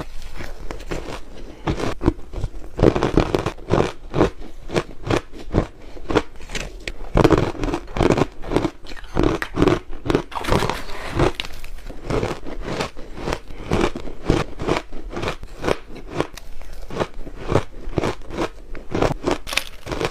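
Soft freezer ice being bitten and chewed: a dense, unbroken run of crisp crunches, several a second.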